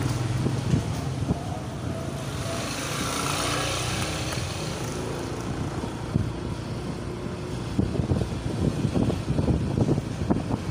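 Traffic noise from a ride along a narrow lane: a steady low engine and road hum with motorbikes passing, one passing hiss a few seconds in, and uneven low buffeting like wind on the microphone in the second half.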